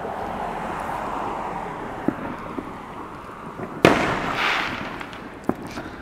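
Fireworks going off: scattered pops over a steady background of more distant fireworks, with one loud, sharp bang nearly four seconds in followed by a brief hiss.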